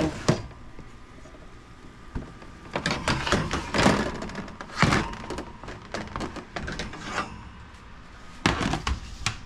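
Metal sheet pan scraping and clattering as it is slid out over the oven's wire rack and set down on the stovetop. The knocks and thunks come thickest about three to five seconds in and again near the end.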